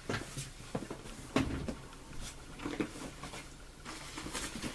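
Handling noise as a backpack is picked up and moved about: several short knocks and some rustling, the sharpest knock about a second and a half in.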